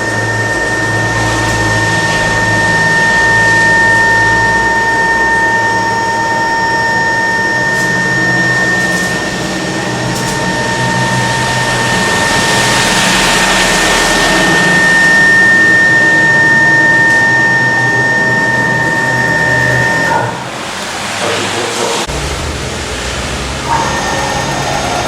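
CNC router's motors running as the machine's axes are jogged, a steady high whine over a lower hum that shifts pitch in steps as the moves change speed. The whine cuts out suddenly about 20 s in, and the machine starts moving again a few seconds later.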